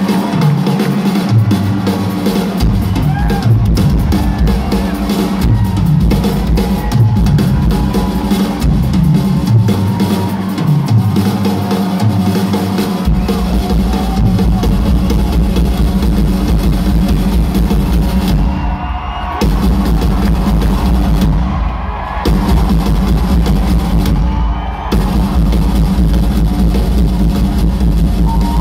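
Live rock band playing loudly, led by a drum kit with heavy kick drum and bass, heard from the arena seats. In the second half the cymbals cut out for three brief stops.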